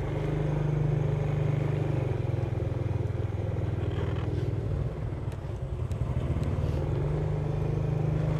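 Engine of the vehicle being ridden, running steadily at low road speed as a continuous low hum. It eases off briefly about five seconds in, then picks up again.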